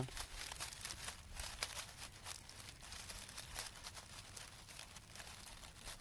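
Faint, irregular crackling and rustling of dry leaf litter as a hand moves among wild ramp plants.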